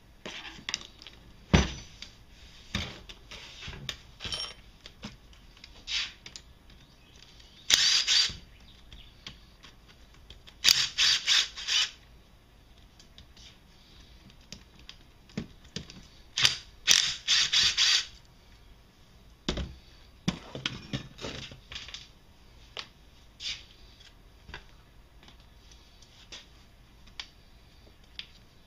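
Cordless drill-driver run in several short bursts to back out bolts on a Can-Am ATV engine crankcase, between sharp clicks and clinks of metal tools and bolts against the aluminium case.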